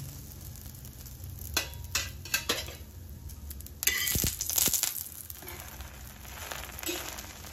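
Oil sizzling under bread sandwiches toasting on a flat iron tawa, with a steel spatula clicking and scraping on the pan a few times. About four seconds in comes a louder scrape and sizzle lasting about a second, as another sandwich is set down on the oiled pan.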